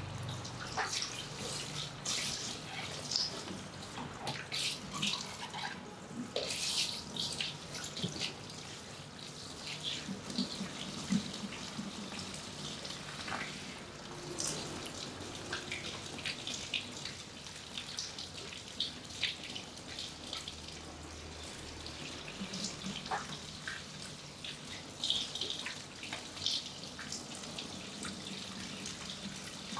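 Water spraying from a handheld shower head onto a person's hair at a shampoo basin, running steadily with irregular splashes and drips into the basin.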